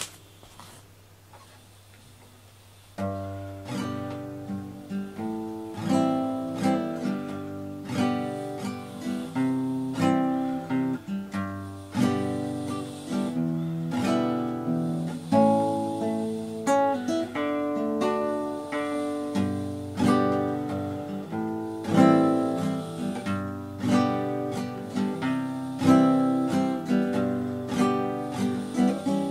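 Background acoustic guitar music of plucked notes, starting about three seconds in after a short quiet stretch.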